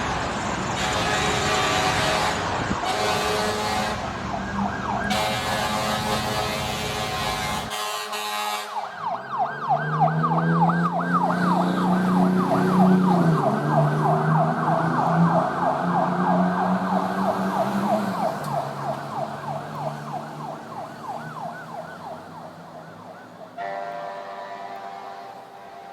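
Emergency vehicle sirens, one recording after another. First a siren heard with road noise, broken by several sudden cuts; then from about eight seconds a fast siren sweeping up and down several times a second over a low hum, slowly fading away; near the end a different siren with steady tones begins.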